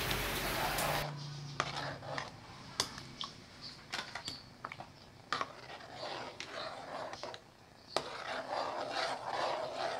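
Ladle knocking and scraping against a metal cooking pot as a thick stew is stirred: a scatter of sharp, uneven clicks and knocks.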